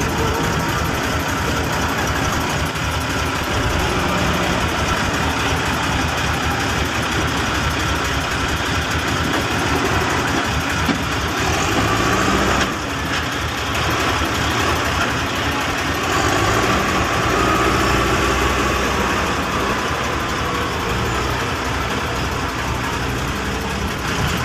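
Heavy diesel machinery engine running steadily during log unloading, with a dense noisy rumble that dips briefly about halfway through.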